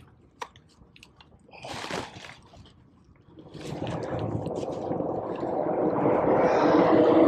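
River water splashing and pouring through a landing net as a striped bass is lifted out of the water, with a brief splash about two seconds in and a rush of draining water that grows louder over the last few seconds.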